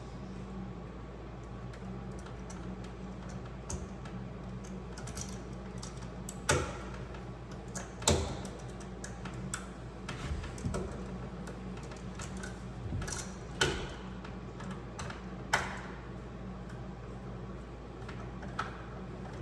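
Scattered sharp knocks and clicks of cabinet installation work, about half a dozen loud ones with lighter ticks between, over a steady low hum.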